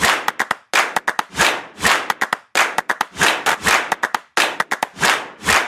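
Background music with a steady percussive beat of clap-like hits about twice a second, quick ticks between them and a low bass line.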